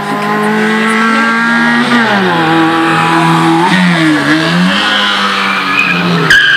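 An Autobianchi A112's small four-cylinder engine run hard round a tight circuit. Its pitch holds high, drops about two seconds in as the driver lifts and shifts, then dips and climbs again as the car passes close by.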